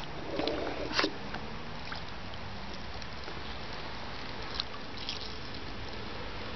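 A small pike hooked on a wobbler splashing faintly at the water's surface close to the bank, over a steady hiss, with a sharp click about a second in.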